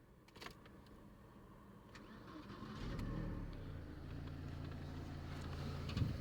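Mercedes-Benz W210's M111 inline-four petrol engine starting about three seconds in and settling into a steady idle, after a few light clicks.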